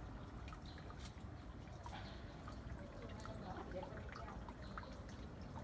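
Faint scattered ticks and rustles of chickens pecking and scratching among leafy greens, over a low steady rumble.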